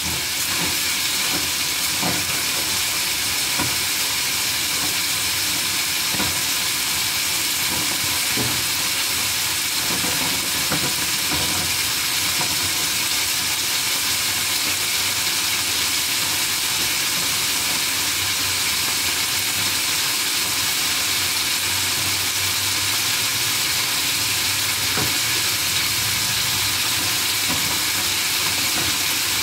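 Diced carrot, chayote, garlic and tomato sizzling steadily in hot oil in a skillet as they sauté and begin to brown, with a few faint knocks now and then.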